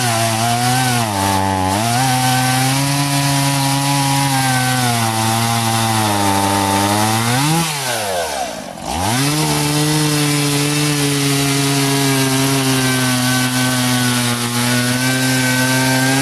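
Stihl MS 170 two-stroke chainsaw running at full throttle, cutting through a log, its pitch sagging under load. About eight seconds in, the revs fall away as a cut finishes, then it revs back up and cuts again.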